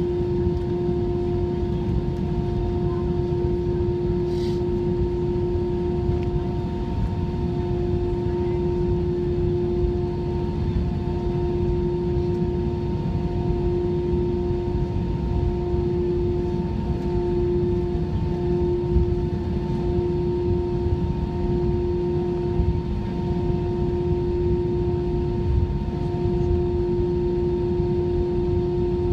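Inside the cabin of an Airbus A319 taxiing: a steady hum with a few held tones over a low rumble, and one small click about four seconds in.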